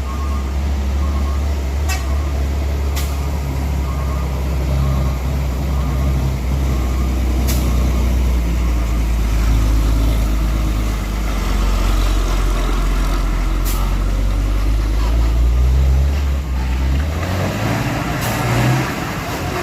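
Heavy truck's diesel engine running with a deep, steady drone, with a few short sharp clicks; the engine note changes and drops away near the end.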